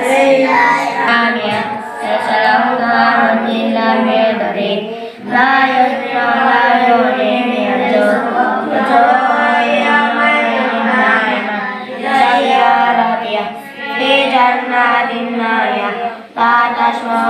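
A group of boys reciting the Qur'an aloud together in a chanted, melodic unison, with short breath pauses about five seconds in and near the end.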